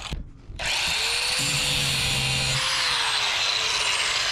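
Corded angle grinder with a cut-off disc cutting stainless steel tubing: a steady high hiss with a whine that rises and falls. The sound drops out briefly just after the start.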